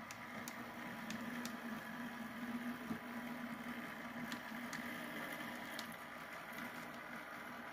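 HO scale model diesel switcher running slowly along the track: a steady low motor hum with a few light clicks from the wheels on the rails.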